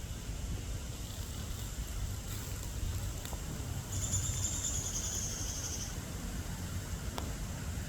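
A high, pulsed insect buzz lasting about two seconds, starting about four seconds in and falling slightly in pitch, over a steady low rumble of wind on the microphone.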